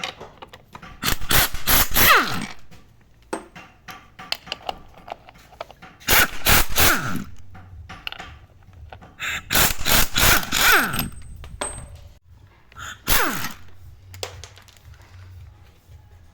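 Impact wrench run in four short bursts, each ending in a falling whine as it spins down, undoing the 19 mm bolts that hold the front lower control arm, with tool clanks in between.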